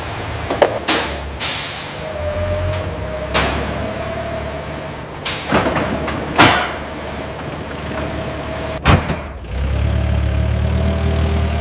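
Several sharp hisses of released compressed air over a steady machine hum, with a low rumble that grows louder about nine seconds in.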